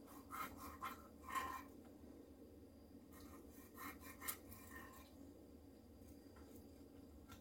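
Faint rasping strokes of a knife scoring diagonal cuts through the skin of a whole raw fish, in two short runs: one in the first second and a half, another around three to four seconds in.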